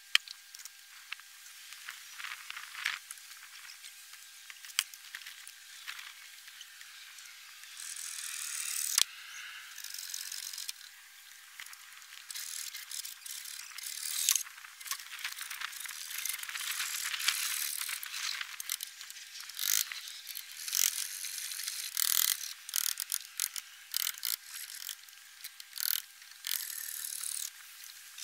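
Hand work on a roof under construction: irregular scraping, rustling and clicking of roofing materials being handled, with a sharp knock about nine seconds in. A faint steady high tone runs underneath.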